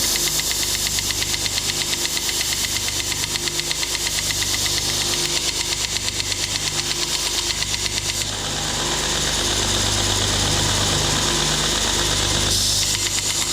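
Homemade 2x72 belt grinder running, its 3 hp electric motor and belt giving a steady hum with a rapid, even ticking. The ticking smooths out for a few seconds from about eight seconds in, then returns.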